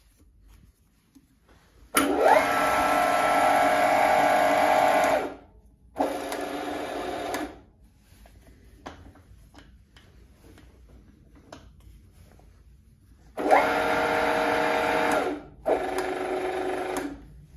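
Huvema HU 45 DM geared-head milling machine's electric motor switched on and off in four short runs, each lasting one to three seconds, with a steady gear whine. The runs come in two pairs with a long pause between, and the first run of each pair starts with a rising whine as the motor spins up.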